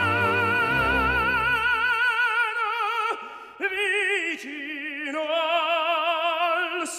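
Operatic singing with a strong vibrato: one long held note, a short break about three seconds in, then a new phrase of held notes.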